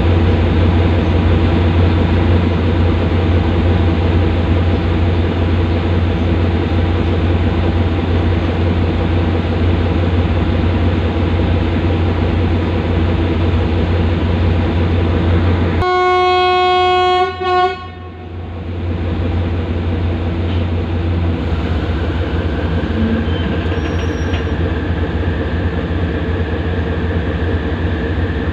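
State Railway of Thailand GE diesel locomotive No. 4042 running under power with a steady deep engine drone. A little past halfway the locomotive horn sounds one long blast of under two seconds, and after it the engine note drops and settles lower.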